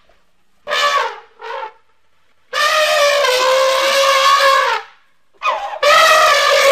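Elephant-style trumpeting calls presented as those of a straight-tusked elephant, Palaeoloxodon antiquus, an extinct species, so the calls are a reconstruction. Two short blasts, then a long trumpet of about two seconds, then two more near the end.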